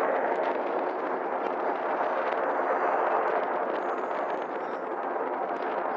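Steady rushing roar of a formation of Red Arrows BAE Hawk jets passing overhead, with a faint high whine in the middle.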